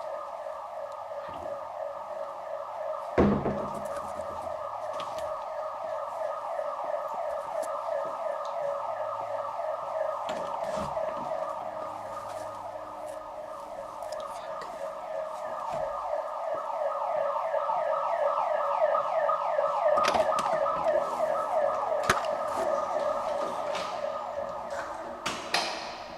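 Building alarm siren sounding: an electronic tone sweeping rapidly upward over and over without a break. A few knocks sound over it, the loudest about three seconds in.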